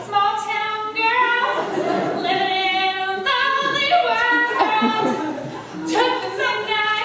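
A girl singing alone without accompaniment, holding long notes and sliding between them.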